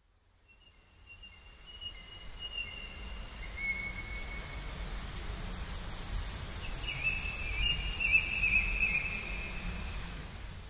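Birdsong and insect chirping fading in and out. Long whistled bird notes come early and again later. In the middle a high insect chirp pulses about four or five times a second, over a low rumble.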